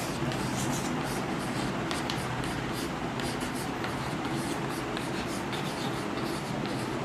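Chalk writing on a chalkboard: a quick run of short scratches and taps as letters are written, over a steady background hiss and hum.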